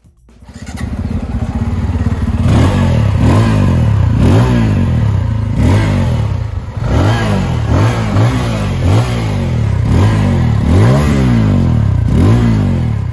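Bajaj Pulsar 250's 249cc single-cylinder four-stroke oil-cooled engine heard through its exhaust, running steadily and then blipped with about a dozen quick revs, each rising and falling back.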